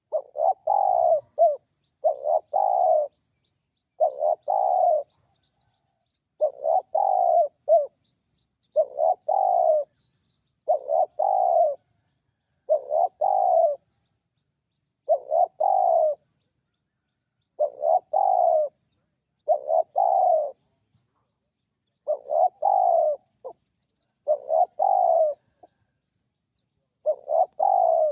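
Spotted dove cooing over and over, each call a short phrase of a few notes, repeated about every two seconds.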